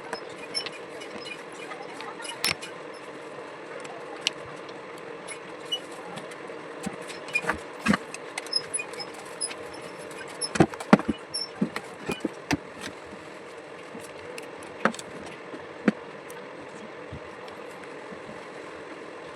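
Scattered sharp clicks and knocks of parts and tools being handled on a table fan under repair, over a steady low hum and hiss. The clicks come thickest in the middle, with a cluster of louder knocks just past halfway.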